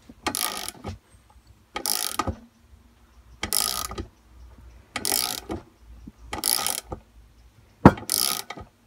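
Socket ratchet winding in a bolt in short repeated strokes, its pawl clicking in six bursts about a second and a half apart. The bolt is pulling the inner sleeve out of a scooter's rubber silent block engine mount bush.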